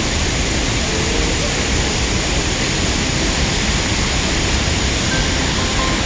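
Fast river rapids: whitewater rushing over rocks in a loud, steady, unbroken rush.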